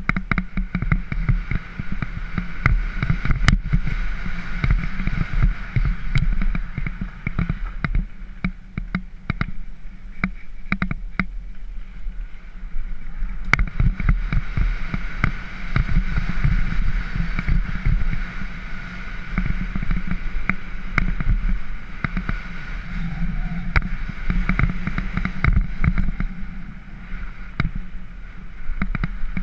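Mountain bike riding down a dirt and gravel trail, heard from an action camera on the bike or rider: a constant low rumble of wind on the microphone, with dense rattles and knocks as the bike and camera jolt over the rough ground.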